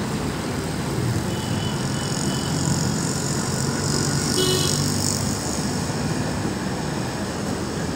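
Steady city road traffic noise, with a brief high-pitched tone about four and a half seconds in.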